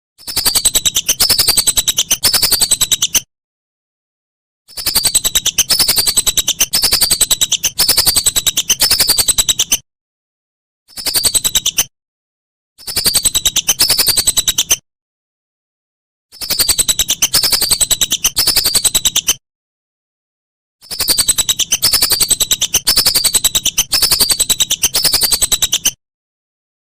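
Whistling duck (belibis) calls: high whistled notes that slide downward, repeated quickly in bouts of one to five seconds, each bout cut off by dead silence as in an edited loop.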